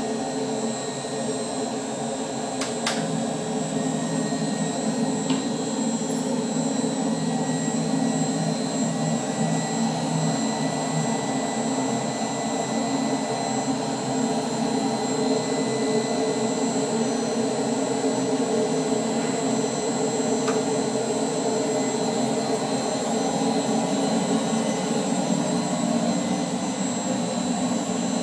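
Rotronics Flow Scan flow bench's variable-speed blower running steadily, a whirring rush of air with several steady tones as it draws air through a motorcycle air filter toward a set pressure of 1.5 inches of water. A few faint clicks come from the filter being handled on the bench.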